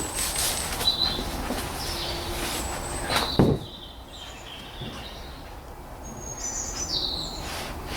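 Plastic air filter housing lid on a BMW X3 2.0-litre diesel being unclipped and lifted off, with plastic handling noises and one sharp snap about three and a half seconds in.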